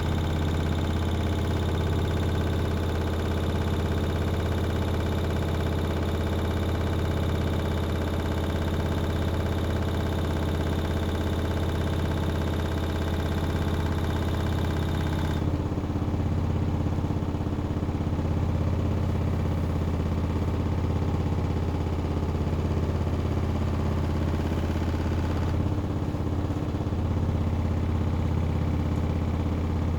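Hoover Axi 9kg washing machine spinning at speed, a loud steady hum with a higher whine on top. About halfway through, the higher whine drops away, and the sound thins again a few seconds before the end.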